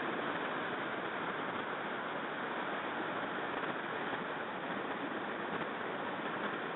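River water rushing steadily over shallow riffles.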